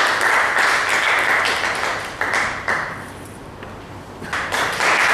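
Audience applauding, the clapping thinning out about three seconds in, then swelling again about a second later.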